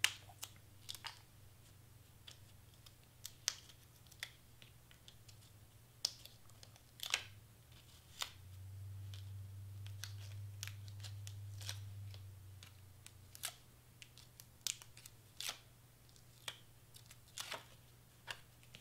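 Faint, scattered light ticks and paper rustles as small foam adhesive squares are peeled and pressed onto cardstock pieces. A faint low hum comes in for a few seconds midway.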